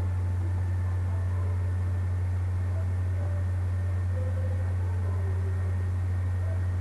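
Steady low-pitched background hum at an even level.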